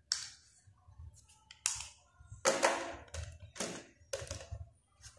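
A protective phone case being handled and pressed onto a phone: about six short clicks and scrapes, with a longer scrape about halfway through.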